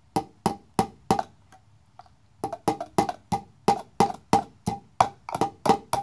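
Hammer driving a cable staple into a wooden board: sharp, ringing strikes about three a second. The strikes pause for about a second after the first four, then resume in a longer, slightly quicker run.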